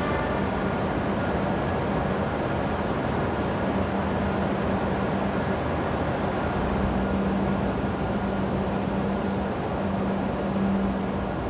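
Steady hum and whir of a stopped E7 series Shinkansen train's onboard equipment at the platform, with a steady low tone that drops out and comes back several times.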